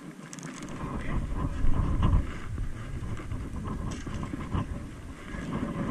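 Wind buffeting the microphone: a gusty low rumble that comes in about half a second in and swells and dips unevenly.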